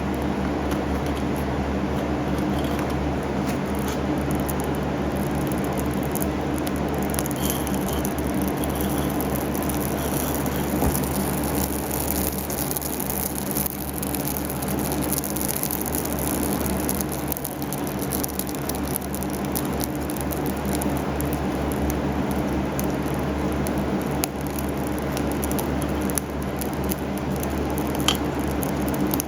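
Small metal-melting furnace running steadily, a constant rushing noise with a low hum under it and fine crackling on top, while oil-coated copper wire burns off in the hot crucible.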